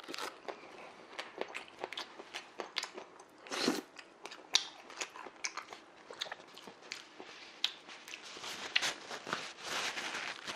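A man chewing a mouthful of Subway shrimp sandwich close to the microphone: irregular crunches, bites and wet mouth clicks.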